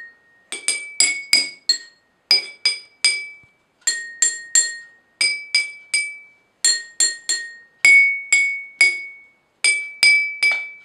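Water-filled drinking glasses tapped in quick runs of two to four, playing a simple tune. Each strike rings on at its own pitch, set by how much water is in the glass: a little, more, or full.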